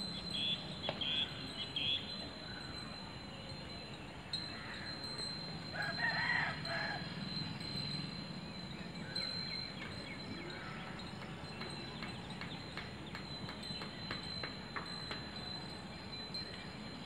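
A rooster crows once, about six seconds in, for about a second, over a steady background with a faint high whine.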